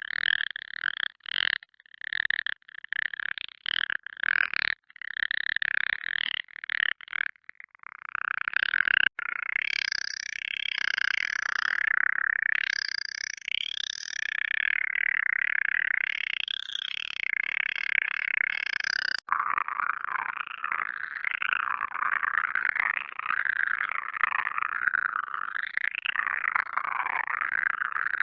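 Alien voice sound effects: an electronically processed, creature-like voice. For about the first eight seconds it comes in short, choppy stutters, then it turns into a continuous warbling chatter whose pitch keeps wavering up and down.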